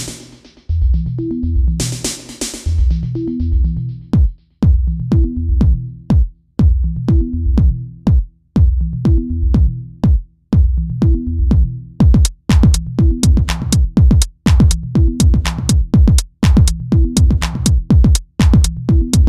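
Electronic dance music with a drum machine beat and a pulsing bass line; the percussion hits get denser about two thirds of the way through.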